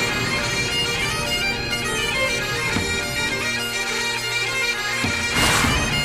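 Bagpipe music: a steady drone under a moving melody. A short burst of noise comes about five seconds in.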